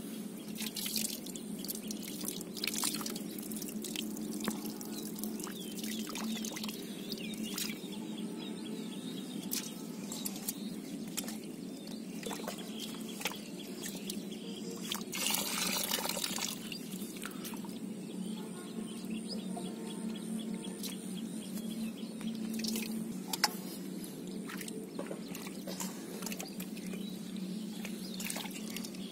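Muddy water sloshing and splashing as a metal bowl is scooped through shallow mud and water is poured off, with scattered drips and splats and one longer pouring splash about halfway through. A steady low hum runs underneath.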